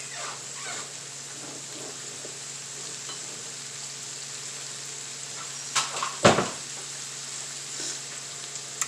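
Shrimp sizzling steadily in butter in a frying pan, with two sharp knocks a little past the middle.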